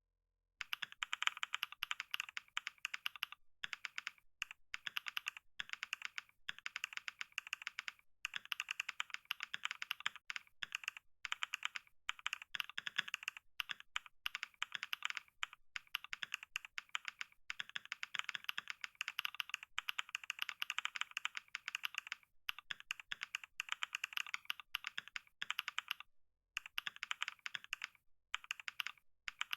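Computer keyboard being typed on at speed: a rapid, continuous patter of keystrokes with a few brief pauses.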